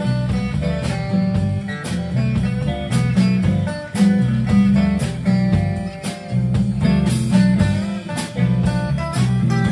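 Live band playing an instrumental passage with no singing: electric guitars over a drum kit keeping a steady beat.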